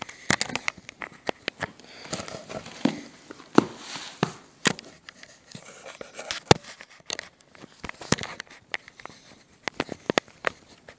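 Handling noise: irregular sharp clicks, taps and light rustling as a cardboard tablet box is moved about on a table and the camera is handled.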